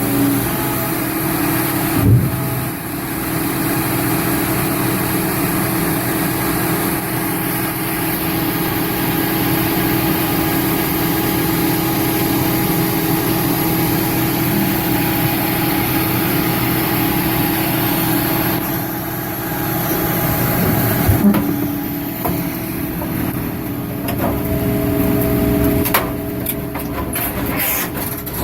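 The engine of a 2006 Al-Jon 580 car logger/baler running steadily, with a brief knock about two seconds in, another about twenty-one seconds in, and a series of sharp clicks near the end.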